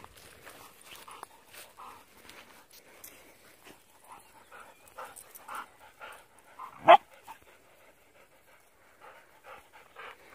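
Dogs panting in short, quick breaths, with one loud, sharp bark about seven seconds in.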